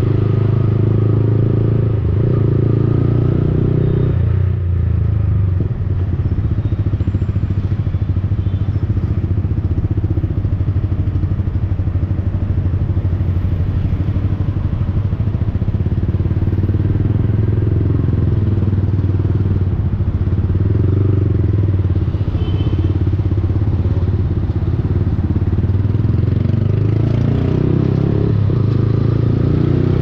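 Yamaha XSR155's single-cylinder four-stroke engine running through an aftermarket Akrapovic-replica exhaust, heard from a camera mounted on the moving bike. The engine note rises and falls with the throttle, eases off briefly about five seconds in, and the revs climb near the end.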